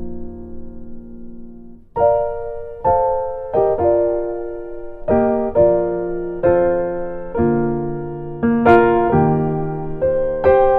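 Solo piano music: a held chord dies away, then about two seconds in a slow, gentle melody of struck notes and chords begins.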